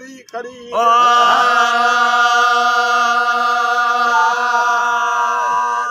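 Men's voices of Sindhi Raagi faqeers chanting Raag Kafi together, holding one long, steady note that begins about a second in after a short break for breath.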